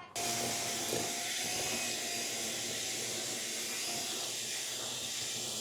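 A steady hissing rush, like escaping air or spraying water, that cuts in suddenly and holds at an even level.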